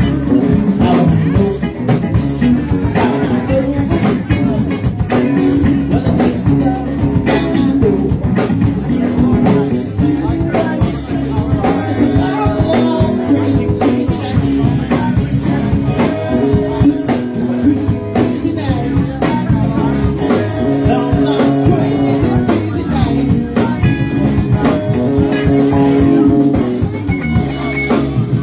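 Live band playing a blues-rock jam, with electric guitar over bass and a drum kit.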